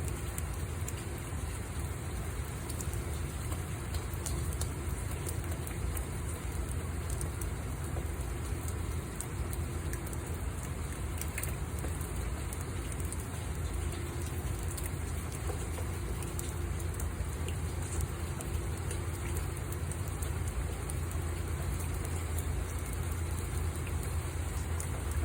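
Rain falling steadily, with scattered drop ticks over a constant low rumble.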